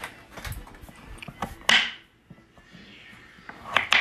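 Chef's knife cutting raw sweet potato into chunks on a plastic cutting board: irregular knocks of the blade through the potato onto the board, the loudest a little under two seconds in and two close together near the end.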